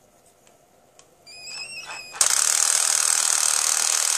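Cordless screwdriver run from a 12 V supply: a click, then the motor whirs up with a short rising whine about a second in. From a little past two seconds it is loaded against something and its torque clutch slips and ratchets loudly and steadily, the motor drawing about 6.5 amps at the maximum clutch setting.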